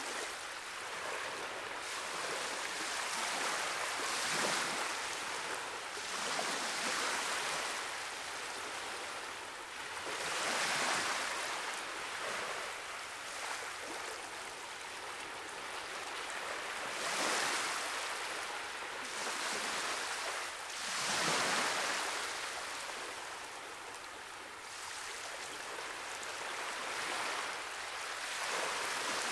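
Sea surf washing against rocks, swelling and falling back every few seconds.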